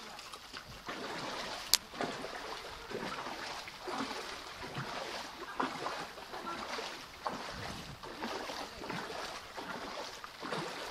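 Feet in plastic clog sandals wading through shallow floodwater, with a splash and slosh at each step, over the steady patter of rain on the water's surface.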